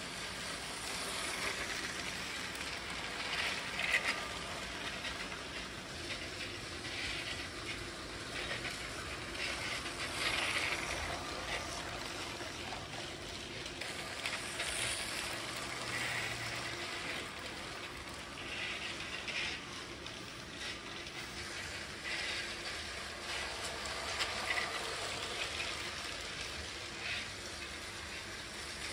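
Motorised Lego trains running over plastic Lego track and switches, their wheels clicking and rattling over the rail joints in an uneven stream of small clicks.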